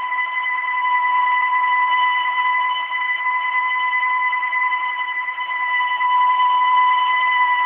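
Steady high-pitched whine with overtones from a warm 1995 Honda Civic's supercharged D16Z6 engine fitted with a Jackson Racing supercharger. The owner traced the noise to the engine's crankcase breather being connected after the throttle body.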